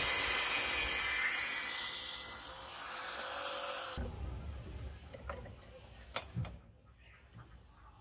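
Handheld electric angle grinder with a sanding disc grinding the wooden handle of a knife: a loud, steady hiss over the motor's whine that stops abruptly about halfway. After that come a few light clicks and knocks as a steel C-clamp is fitted over the handle.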